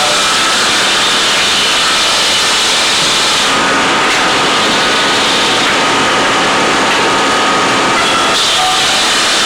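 Loud, steady running of heavy machinery, a dense noise with several steady tones in it. Its character shifts abruptly about three and a half seconds in and again near the end.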